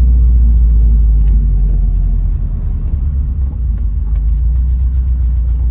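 Cabin sound of a Subaru Impreza GC8 on the move: steady engine and road rumble from its flat-four, easing a little about two seconds in, with a faint chirping squeal now and then. The owner suspects something loose around the clutch, as the squeal comes only under engine braking while driving.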